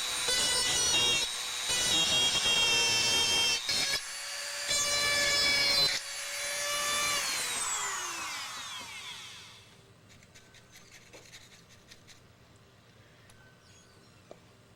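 High-speed rotary tool with a cutting bit whining as it grinds into the plastic kit hull in short stabs, its pitch wavering under load. About seven seconds in it is switched off and winds down with a falling whine, leaving a few faint handling clicks.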